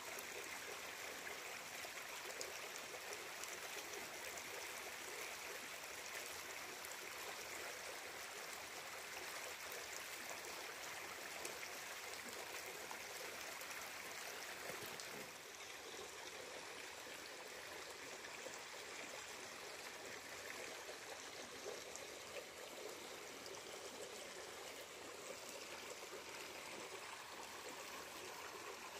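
Steady rush of a flowing stream, which turns slightly quieter and duller about halfway through.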